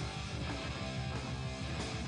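Punk rock band playing: strummed electric guitar over bass and a steady drum beat, with no singing.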